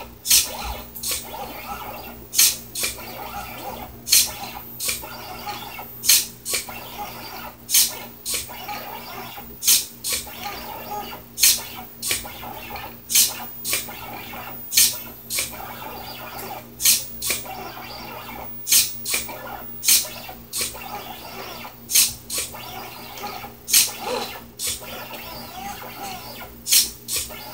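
4xiDraw pen plotter drawing: sharp clicks in close pairs about every one and a half to two seconds as the SG90 micro servo drops and lifts the pen, with the stepper motors chirping faintly between them.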